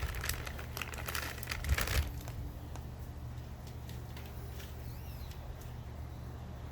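Rustling, crinkling handling noise for about two seconds, then it stops and only a steady low hum remains.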